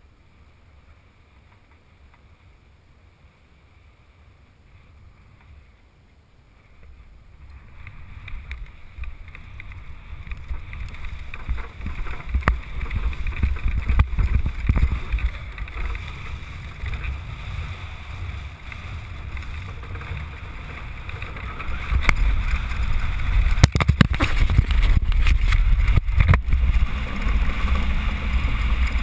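Land yacht rolling over a cracked dry lakebed, with wind on the onboard microphone: faint at first, then a low rolling rumble and wind hiss that grow louder as it gathers speed, from about a quarter of the way in and again near the end. A few sharp knocks come about four-fifths of the way through.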